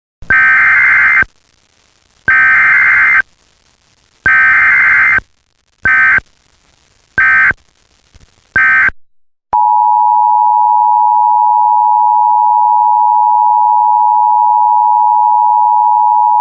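Emergency Alert System tones. First come three roughly one-second bursts of SAME digital header data, then three short bursts. About halfway through, the steady two-tone attention signal starts and holds.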